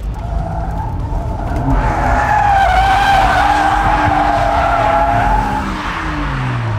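Porsche Boxster skidding with its tyres squealing in a wavering, loud screech over the engine held at high revs as the car spins. The squeal dies away and the engine note falls near the end.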